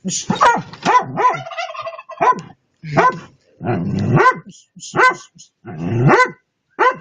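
Dog barking repeatedly, short calls about a second apart.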